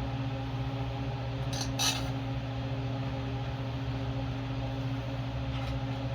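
A steady hum runs throughout, with a short metallic clink of hand tools on small engine parts a little under two seconds in and a faint tap near the end.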